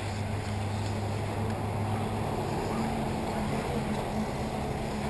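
Electric 1/8-scale RC off-road buggies racing on a dirt track, heard as a steady wash of motor and tyre noise over a constant low hum.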